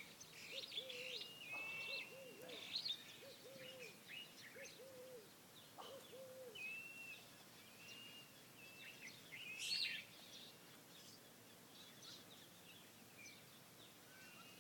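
Faint birdsong at dawn: several birds giving short whistled chirps and calls. Through about the first half, a lower hooting call is repeated in groups of two or three notes.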